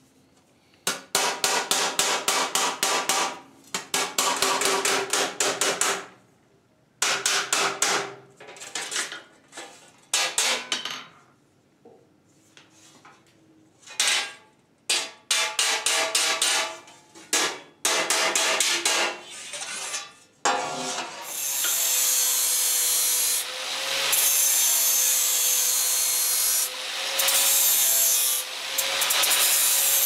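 Ball-peen hammer tapping rapidly on the folded corner of a sheet-steel door laid on an anvil, in bursts with short pauses, dressing the mangled corners where the bent edges cross into a rounded edge. About twenty seconds in, a steady grinder takes over, running continuously with a slightly wavering whine.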